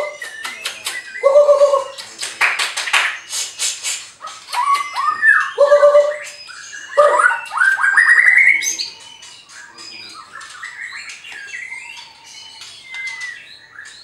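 White-rumped shama (murai batu) singing: loud, varied phrases of whistles, rapid clicking trills and a rising whistled run for about nine seconds, then softer twittering.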